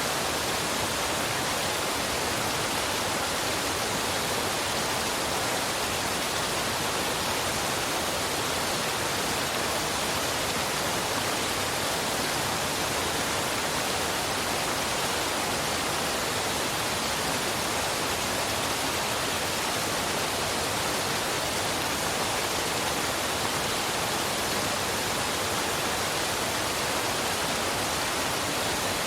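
Waterfall and river water rushing steadily: an even, unbroken hiss of falling water, bright with little low rumble.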